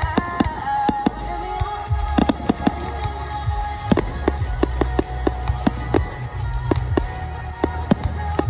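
Fireworks going off in many sharp, irregular bangs and cracks, with music playing underneath.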